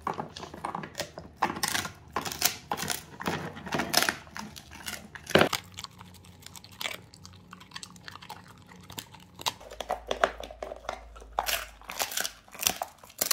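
Large black dog gnawing and crunching a big dried meat chew: irregular, rapid crunches and cracks of the dried meat breaking, the sharpest about five and a half seconds in.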